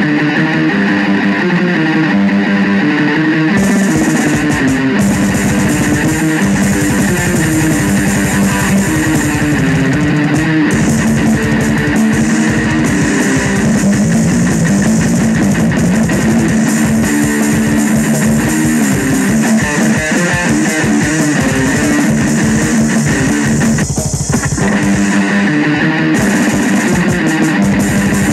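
Heavy metal drum kit played fast and dense under distorted electric guitar riffs. Cymbals come in about three seconds in and drop out again near the end.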